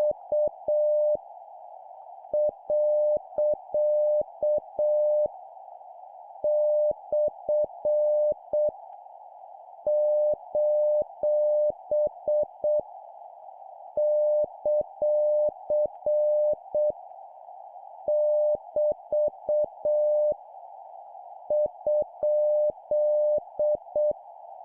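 Morse code (CW) practice tone: a single steady tone keyed on and off in dits and dahs. It is sent as punctuation characters at 7 words per minute, in groups of characters with pauses of about a second between them. Under it runs a soft, steady, narrow hiss like receiver noise.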